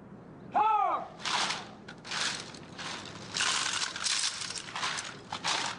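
A brief shouted drill command that rises and falls in pitch, then a run of short crunching, clattering bursts from recruits handling their rifles during a drill-instructor inspection.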